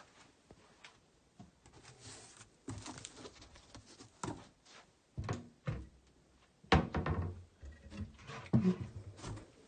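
Handling noise: a string of irregular thumps and knocks as things are moved and handled near the phone, the loudest about seven seconds in.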